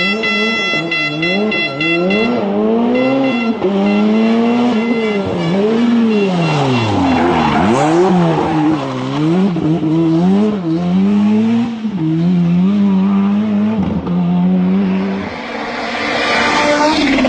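Rally car engine revving hard, its pitch climbing and dropping repeatedly through gear changes and lifts, with a burst of rushing noise near the end.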